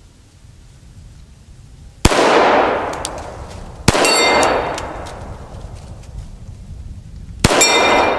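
Three shots from a Glock 41 pistol in .45 ACP, about 2, 4 and 7.5 seconds in, each echoing away slowly. The second and third are followed by the ringing clang of a hit on a steel target.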